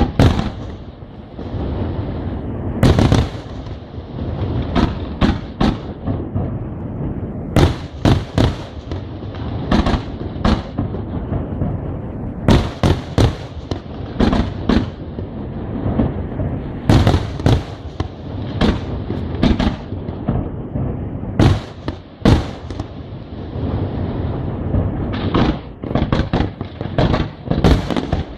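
Aerial fireworks display: shells bursting in an irregular barrage of sharp bangs, some in quick volleys, over a continuous rumbling roll of explosions and their echoes.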